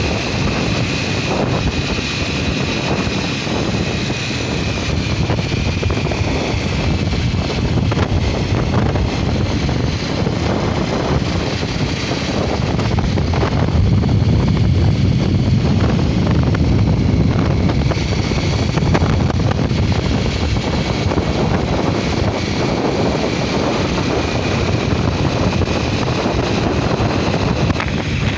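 Motorcycle riding at steady speed on the open road: wind buffeting the microphone over the running engine and tyre noise, swelling a little about halfway through.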